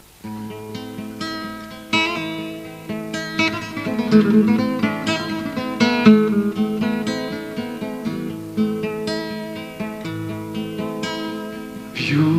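Acoustic guitar playing a plucked instrumental introduction, single notes picked one after another and left to ring. A man's voice starts singing right at the end.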